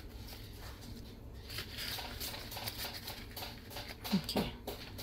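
Soft rustling and crinkling of a clear plastic cash envelope and paper bills being handled as a binder page is turned, with a few small ticks. A brief low hum-like sound comes about four seconds in.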